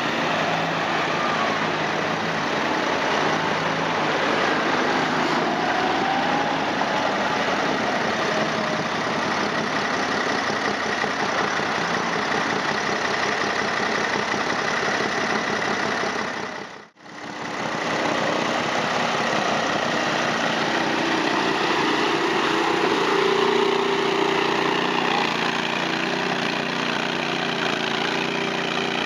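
Engines of 6x6 amphibious ATVs running as the skid-steer machines drive through soft mud. The sound dips out briefly about two-thirds of the way through, then carries on.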